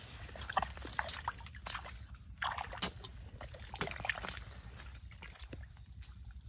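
Wet squelching and sloshing of soft, waterlogged mangrove mud and shallow water as a person moves through it: a run of irregular wet smacks and splashes, busiest in the first few seconds and thinning out near the end.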